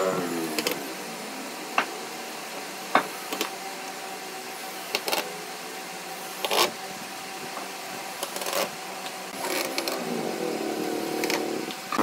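Cordless drill-driver whirring as it drives screws into pine pallet slats: a short run right at the start and a longer one of about two seconds near the end. Between the runs come a few sharp clicks and knocks.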